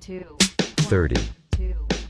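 Background music: a hip-hop beat with sharp drum hits and long, deep bass notes.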